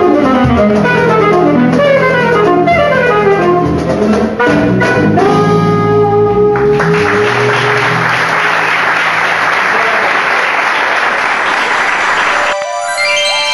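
Flamenco fusion band playing its closing phrase: fast saxophone runs over guitar and cajón, ending on a long held note, followed by a loud sustained noisy wash of sound. Near the end it cuts to a short electronic jingle.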